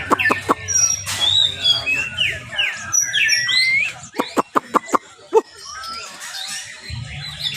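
White-rumped shama (murai batu) singing: a run of quick, varied whistled phrases, as the bird warms up, mixed with bursts of sharp clicks near the start and again past the middle.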